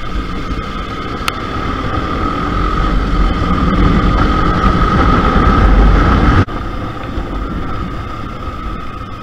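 KTM RC 200 single-cylinder engine running under way with wind rush, getting louder as the bike speeds up and then dropping off sharply about six seconds in. A short click about a second in.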